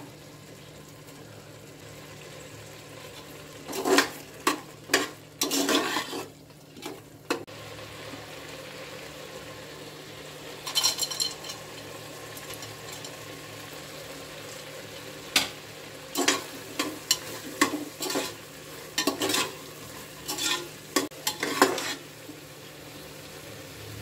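A metal slotted spoon scrapes and clinks against an aluminium pressure cooker as thick carrot halwa is stirred, in several short bouts, over a faint steady sizzle from cooking in ghee. A brief clatter about eleven seconds in comes as fried nuts are tipped into the pot.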